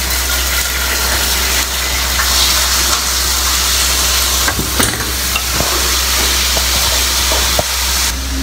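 Loud, steady hiss that cuts off suddenly near the end, over a low steady hum, with a few light clicks in the middle.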